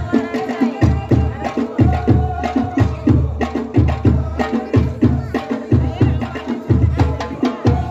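Ahwash music: several large frame drums beaten in a steady, driving rhythm of deep strokes about twice a second, dense with sharp clicking strikes in between. Voices sing held notes over the drumming.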